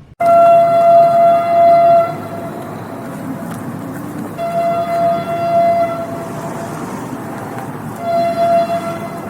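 Train horn sounding three blasts, two long and one short, as the train runs past with a steady rumble.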